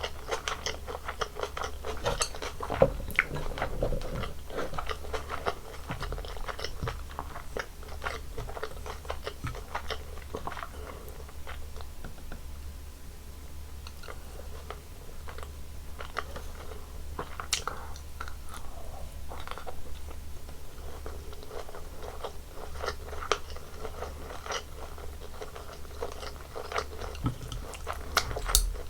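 Close-miked eating sounds from a meal of bulgogi, kimchi, seaweed and white rice: steady chewing with frequent crisp crunches and sharp mouth clicks, a little sparser around the middle.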